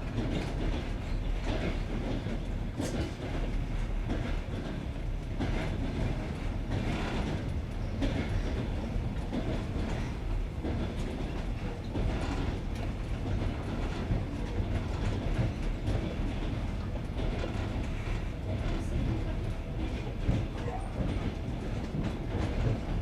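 Passenger train's wheels clattering over the joints of jointed (non-welded) rails: a steady running rumble with repeated clickety-clack beats.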